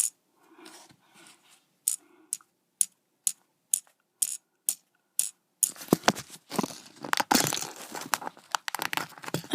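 Small Lego plastic pieces tapped together, about two sharp clicks a second, as a minifigure's pickaxe strikes the bricks. Then a longer, busier stretch of plastic pieces rattling and clicking as they are handled.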